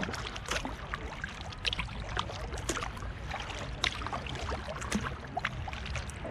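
A double-bladed kayak paddle dipping into lake water from a solo canoe, with irregular splashes and drips about once a second.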